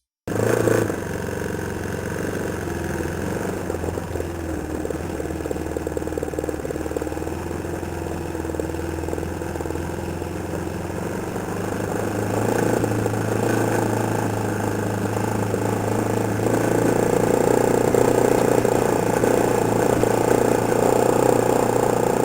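ATV engine running steadily, getting louder about halfway through.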